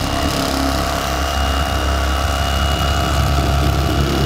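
Bubba corded electric fillet knife running with a steady high whine, its serrated reciprocating blades sawing through a largemouth bass along the spine.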